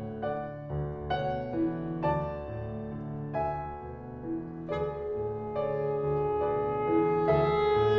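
Piano playing a series of struck chords, each left to ring into the next.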